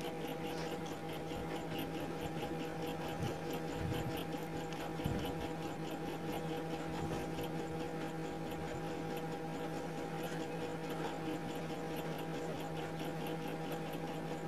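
Pot of tinola fish broth heating on the stove: faint bubbling over a steady hum, with a couple of soft bumps about four and five seconds in.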